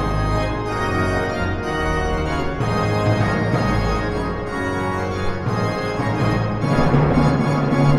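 Schnitger/Hinsz baroque pipe organ playing a Renaissance dance, sustained chords with a low bass, accompanied by drums struck with mallets in a steady beat about once a second. The bass grows stronger near the end.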